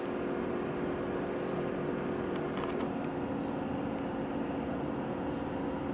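Steady hum of a running air conditioner, with a faint short high beep at the start and another about a second and a half in.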